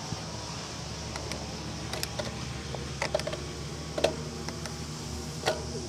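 Pigeons pecking at the ground close to the microphone: a handful of sharp, irregular taps, the loudest about four seconds in and near the end, over a steady low outdoor rumble.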